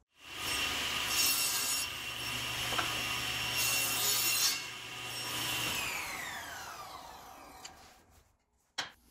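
Table saw motor spinning up and running with a steady high whine while the blade crosscuts plywood in a sled, the cut noise swelling twice as the wood feeds through. The saw is then switched off and its whine falls away as the blade winds down, with a single sharp knock near the end.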